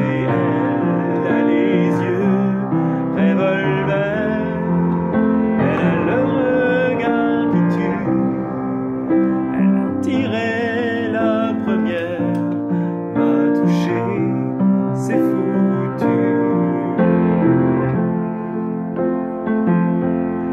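Upright piano playing an instrumental passage of a pop ballad, with full chords in the low and middle range under a moving melody.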